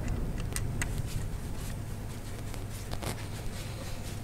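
A socket driver tightening a worm-drive hose clamp on an engine breather hose gives a few scattered light clicks of metal on metal, over a steady low hum.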